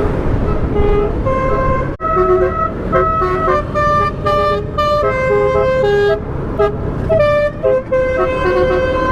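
Telolet horn on a car playing a quick tune, a string of short horn notes jumping in pitch several times a second, over steady road noise.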